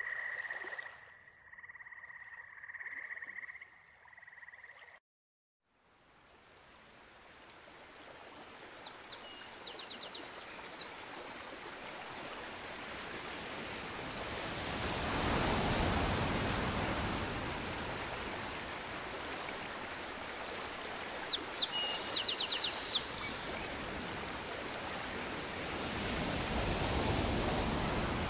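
Frogs calling in a steady, pulsing chorus that cuts off about five seconds in. After a moment of silence, rushing stream water fades in and grows louder, with a few brief high chirps about ten seconds in and again past twenty seconds.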